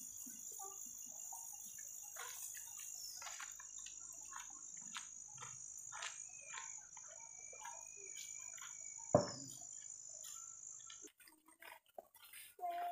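Steady high-pitched insect trill, with scattered faint clicks and one sharp knock about nine seconds in. The trill stops shortly before the end, where a short call is heard.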